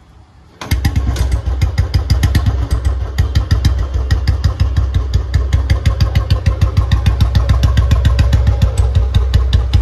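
Royal Enfield Bullet single-cylinder engine catching about a second in, then idling, its exhaust beating in quick, even pulses.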